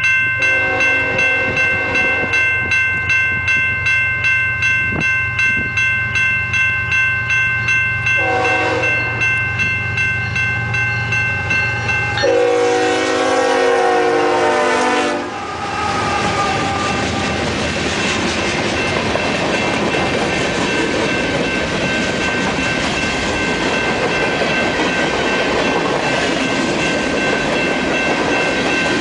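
Union Pacific manifest freight train passing: a warning bell rings about twice a second while the locomotive's air horn sounds, first a short blast about 8 seconds in and then a loud long blast about 12 seconds in as the locomotive goes by. After that comes the steady rumble and clatter of the freight cars rolling past.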